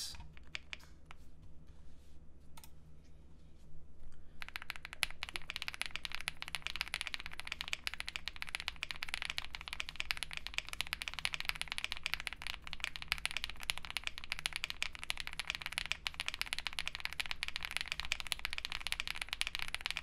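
Typing on a Wuque Mammoth75 mechanical keyboard with KTT Kang switches, PE foam and GMK Lux keycaps: a few scattered key presses at first, then from about four seconds in a fast, continuous stream of keystrokes.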